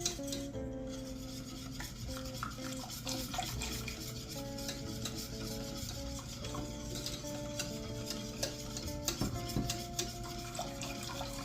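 Stirring a sugar and cornstarch mixture in a saucepan, the utensil scraping and rubbing against the pan bottom again and again, over soft background music.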